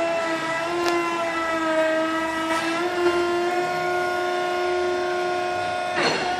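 Mini skid steer loader running with a steady high whine from its drive and hydraulics, the pitch stepping up and down a little as it works, with a sharp knock near the end.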